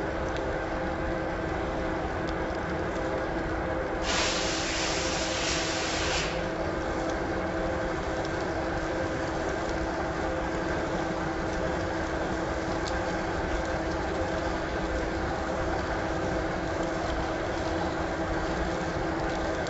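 Steady mechanical hum with a constant drone of several fixed tones under a noisy background, and a hiss lasting about two seconds starting about four seconds in.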